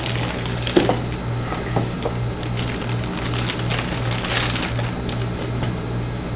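A clear plastic packaging bag rustling and crinkling as it is handled and pulled off a boxed scanner attachment. There are a few louder crinkles, the longest about four seconds in, over a steady low hum.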